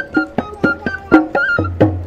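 Background music in a traditional Indian folk style: a flute melody over a steady drum beat of about four strokes a second.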